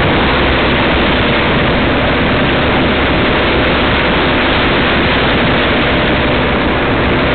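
Vehicle engine running steadily as it drives slowly along a wet, flooded dirt driveway, under a loud, even hiss of noise.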